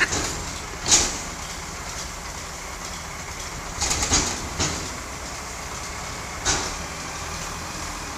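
Heavy diesel engines of a wheel loader and a stuck ZIL garbage truck running under load as the loader's bucket shoves the truck out of deep snow, with several sudden metal bangs and clanks: one at the start, a louder one about a second in, a cluster around four seconds and another later on.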